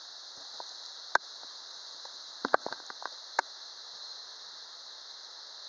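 Steady high-pitched drone of insects, with a few sharp clicks or taps about a second in and several more between two and a half and three and a half seconds in.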